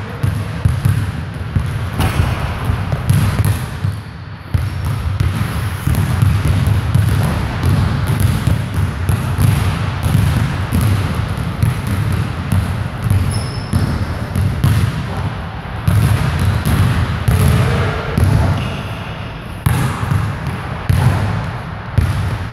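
Basketballs bouncing on a hardwood gym floor as several players dribble and shoot around, dull thuds overlapping one another, with a short lull about four seconds in.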